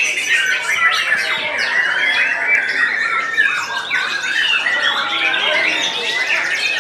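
Several caged white-rumped shamas singing at once: a dense, unbroken tangle of loud whistles, warbles and harsh chattering calls overlapping one another.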